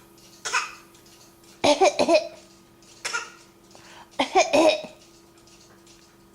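A baby coughing: four short coughs about a second apart, some with her voice in them.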